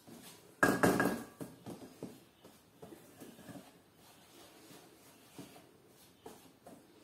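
A metal mesh strainer clatters against a stainless steel mixing bowl as flour is tipped in, with a brief metallic ring, about half a second in. After that, a wooden-handled spatula stirs the flour into a butter-and-sugar cookie dough, with soft scraping and light taps against the bowl.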